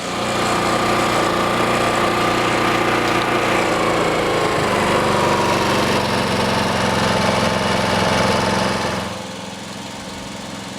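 Briggs & Stratton P3000 inverter generator running at full speed with economy mode off. From about four seconds in, its pitch sinks, and near nine seconds it turns markedly quieter as economy mode lets the engine slow down.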